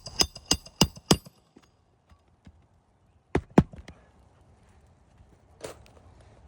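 Hammer driving a roofing nail into an asphalt shingle: five quick ringing metal blows, then two more a couple of seconds later.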